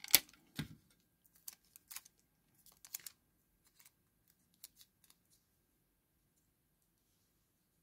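Scotch tape being handled, pulled and torn: a sharp snap just after the start, then scattered small crackles and clicks that stop after about five seconds.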